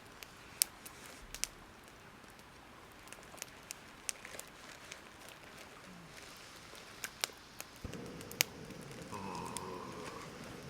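Campfire crackling, with sharp pops at irregular intervals; a steadier low rushing noise joins about eight seconds in.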